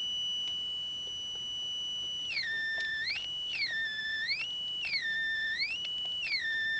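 Square-wave test tone from a home-built one-cell, two-transistor headphone amplifier, heard through the headphones: a steady high beep that, about two seconds in, starts gliding down to a lower pitch and back up again, about four times, as the signal frequency is changed.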